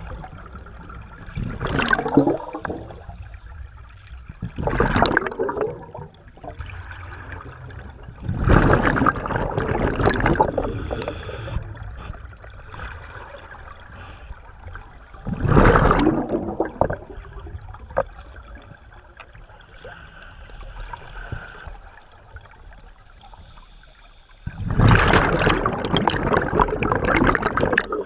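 Scuba diver's exhaled bubbles from the regulator, heard underwater: five bursts of bubbles, each from about a second to a few seconds long, the longest near the end, with quieter stretches between them.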